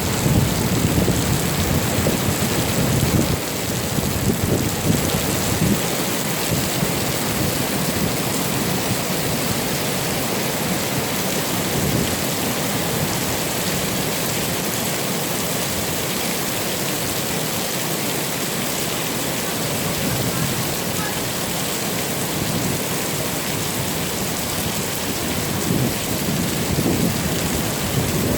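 Heavy rain pouring down in a steady, dense hiss. A low rumble sits under it for the first few seconds and comes back near the end.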